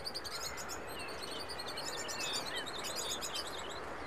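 Small birds chirping: many quick high chirps in overlapping runs, with a few short sliding whistles, over a steady faint hiss.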